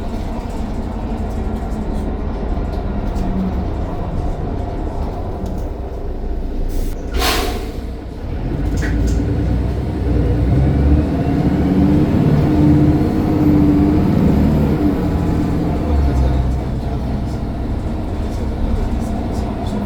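Mercedes-Benz Citaro O530 bus engine running, with a short hiss of compressed air about seven seconds in. From about ten seconds the engine grows louder as it takes up load, with a faint rising turbo whine over it.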